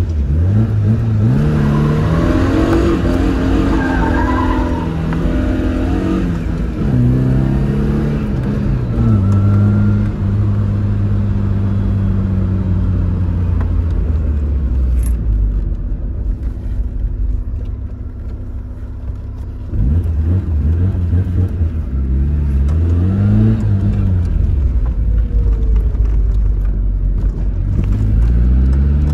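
Tofaş Doğan SLX engine revved hard several times, its pitch climbing and dropping with each throttle blip and gear change, easing to a lower, steadier note in the middle. A tyre-squeal hiss rides over the first revs as the rear-wheel-drive car is drifted.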